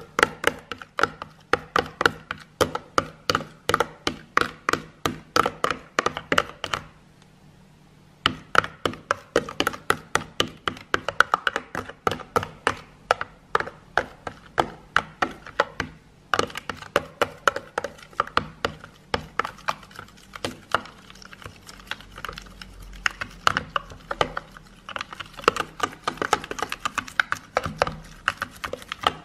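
A metal spoon stirring a runny soap-and-dish-detergent slime mixture fast in a plastic tub, knocking against the tub about four times a second. The knocking stops for about a second a quarter of the way in, then goes on.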